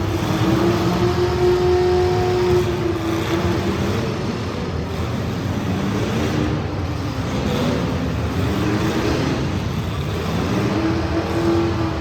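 Street stock race car engines running hard, their pitch rising and falling several times as the cars accelerate and back off.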